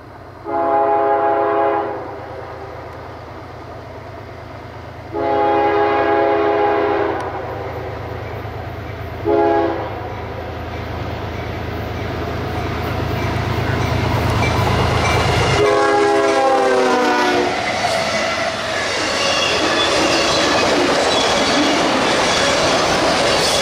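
CSX diesel freight locomotive sounding its horn in the long-long-short-long grade-crossing pattern as it approaches; the last long blast drops in pitch as the locomotive passes, and its low engine drone falls away. Then the autorack cars roll by with steady wheel noise and clickety-clack.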